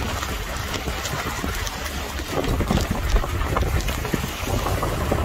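Wind buffeting the phone's microphone, a loud low rumble over a steady hiss of wind and rain, with scattered small knocks.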